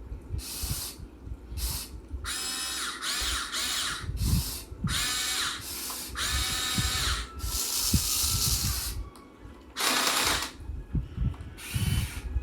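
Electric motors and gearboxes of a Huina 1580 all-metal RC excavator whining in short bursts as its functions are worked, starting and stopping about ten times. Occasional low knocks come between the bursts.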